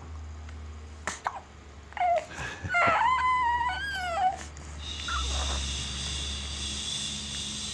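Baby whimpering: a short fussy cry of a few wavering, high squeals about two seconds in, after a single sharp click. From about five seconds a steady hum with a high whine sets in.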